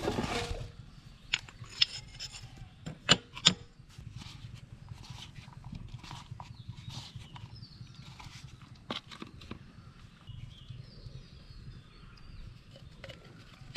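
Handling noises of fishing bait being prepared on a concrete floor: a few sharp clicks and knocks in the first four seconds, then faint scraping and light tapping as bait is mixed by hand in a small bowl and small plastic bottles are handled.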